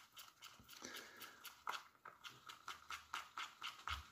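Plastic spoon stirring resin in a clear plastic cup: a faint, quick, rhythmic scraping of spoon against cup, about five strokes a second.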